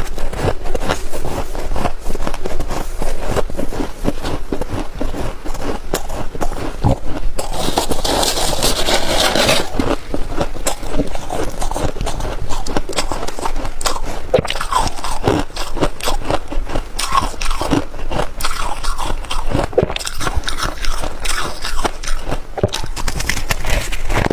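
Biting and chewing of freezer frost and ice: a continuous run of crackly crunches, densest and loudest about eight to ten seconds in.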